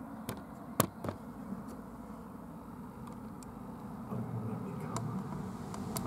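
Camera-handling noise as the camera is pushed up into a nest hole: a few sharp knocks and taps in the first second, the loudest about a second in, then faint scraping over a low steady rumble.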